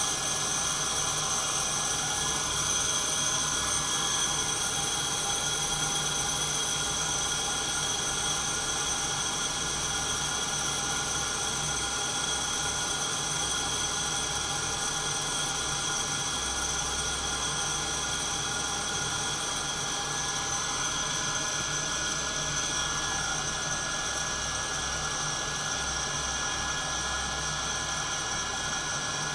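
Santoker Q5 coffee roaster running during a roast: a steady whir from its fan and motor with a high, even whine, unchanging throughout.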